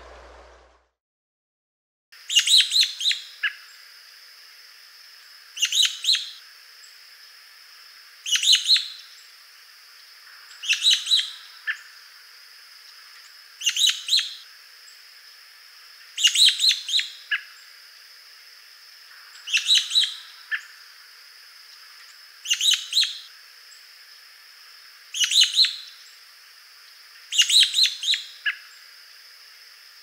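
American robin giving its high, thin "squeep" call, a call whose function is uncertain. It comes in clusters of short, sharp notes, about ten times at intervals of roughly 2.5 to 3 seconds, starting about two seconds in.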